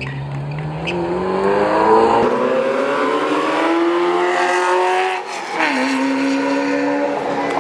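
Ferrari 348's V8 engine accelerating hard, its pitch climbing steadily for about five seconds, then dropping sharply with an upshift and holding steady.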